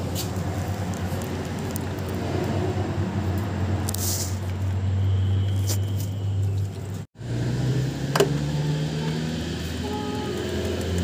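A motor vehicle engine running with a steady low hum. About seven seconds in, the sound drops out briefly, then the hum comes back rising slightly in pitch.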